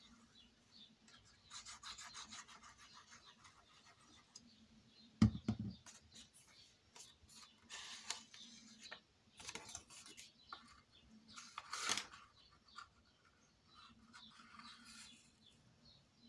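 White card stock rustling and sliding on a wooden tabletop as it is handled, folded and pressed flat by hand, with one knock on the table about five seconds in.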